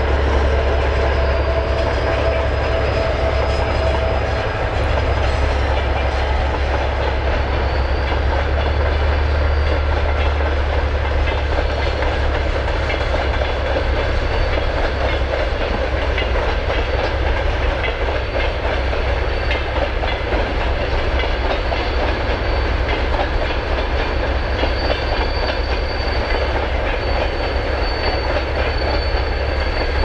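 Freight train of empty container wagons rolling steadily past, wheels clicking over the rail joints over a continuous low rumble.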